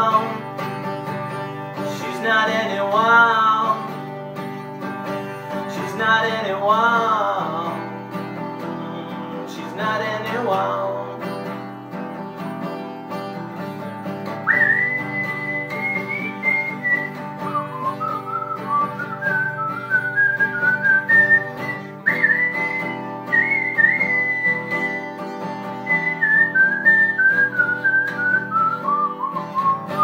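Steel-string acoustic guitar strummed steadily. Over it a voice sings with vibrato for the first ten seconds or so, then from about halfway a high whistled melody carries the tune.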